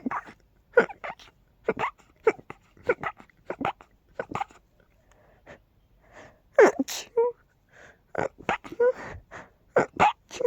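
A person sneezing over and over in short, sharp bursts, often two in quick succession. The loudest, more voiced sneezes come about six and a half seconds in.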